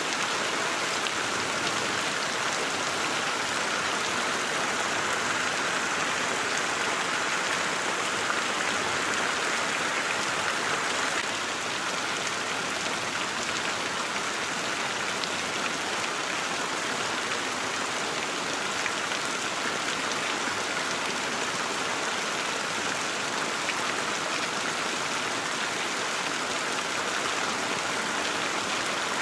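Heavy rain falling steadily on broad plant leaves and bare ground, a dense, even hiss of drops. It eases very slightly about eleven seconds in.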